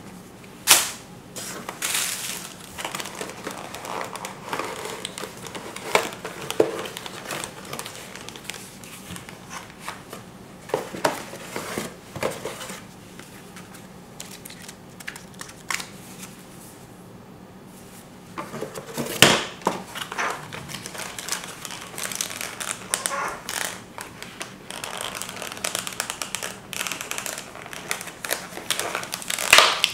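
Plastic and paper lens packaging crinkling as it is handled: a plastic bag, a paper leaflet and a clear plastic shell around the lens. Several sharp clicks and knocks are scattered through it, with a quieter lull in the middle.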